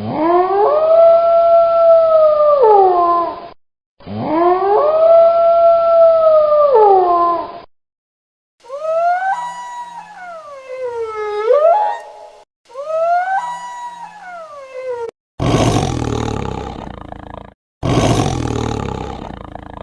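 A series of recorded wild-animal calls, each played twice: two long, held howls that rise and then fall away, two shorter calls that swoop down and back up in pitch, and near the end two rough roars.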